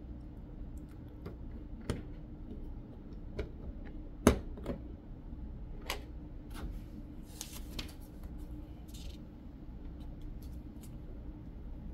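Plastic Lego bricks clicking as they are pressed and fitted together by hand: scattered light clicks, the sharpest snap about four seconds in, and a short rustle of pieces a few seconds later.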